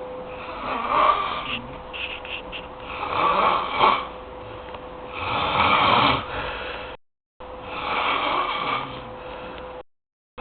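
Heavy snoring through an open mouth: four long snores, about two seconds apart, each rising and falling.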